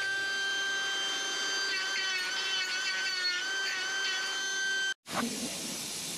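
Hose-fed air grinder running with a steady high whine, its pitch wavering as it is worked against rusty body metal, then cut off abruptly about five seconds in.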